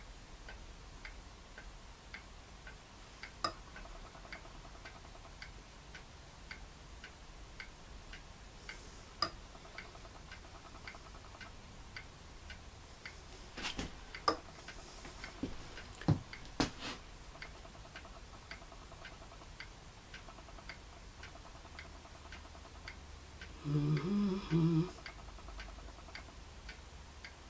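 A clock ticking steadily, about two ticks a second, under faint room tone. A few sharper clicks come from handling the small metal spatula and the latex ball halves, and a man's voice hums briefly near the end.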